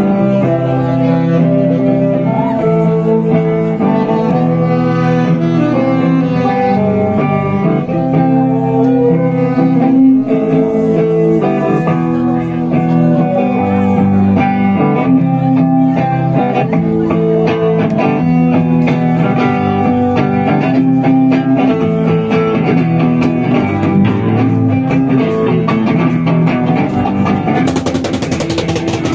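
Live rock band playing an instrumental passage on electric guitar, drums and saxophone, with cymbals swelling near the end.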